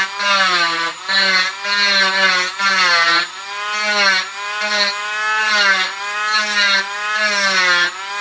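Dremel rotary tool with a coarse bit grinding away a leftover holding tab on a wooden mini bat. It runs in repeated short passes, and its whine sags in pitch each time the bit bites into the wood.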